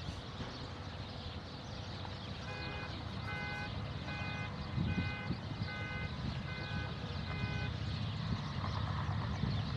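A vehicle's reversing alarm sounds a run of about nine short, evenly spaced electronic beeps, a little under two a second. It starts a couple of seconds in and stops about two seconds before the end, over a steady outdoor hiss of wind.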